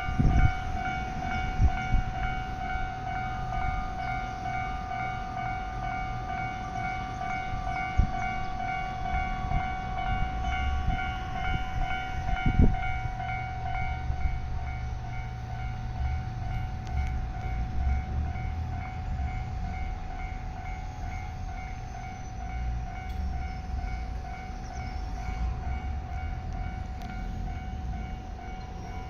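Japanese railway level-crossing alarm ringing in a steady, rapidly repeating electronic ding, while a train runs past with a low rumble that is heaviest in the middle. A few sharp knocks come through in the first half.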